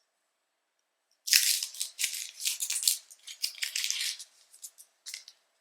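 A chocolate bar being unwrapped by hand: its wrapper crinkling and rustling in quick irregular bursts for about three seconds, starting about a second in, with a few short crinkles near the end.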